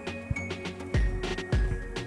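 Background music with bell-like mallet tones and a steady beat, with two deep low hits about a second in and half a second apart.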